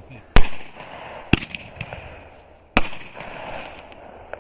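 Consumer fireworks cake firing: three sharp bangs about a second and a half apart, the first the loudest, with crackling between them and a faint pop near the end.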